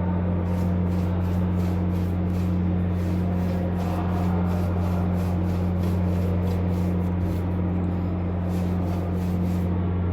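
A steady low hum, with light scraping strokes repeating about three times a second, like a tool being worked over drywall.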